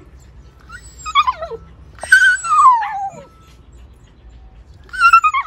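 Siberian husky puppies calling back and forth with high whining howls that slide down in pitch: a short one about a second in, a longer one about two seconds in, and another starting near the end. The puppies are hungry.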